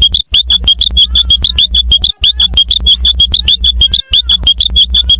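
Cartoon alarm-like sound effect: a rapid train of short, high-pitched electronic beeps, about nine a second, in runs of roughly two seconds broken by brief gaps. It is very loud and distorted by extreme volume boosting.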